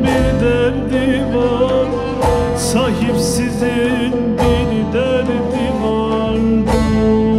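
Live Turkish folk song (türkü): a man sings ornamented, wavering melody lines over a plucked bağlama (saz), backed by a small ensemble with a wind instrument, keyboard and hand drum.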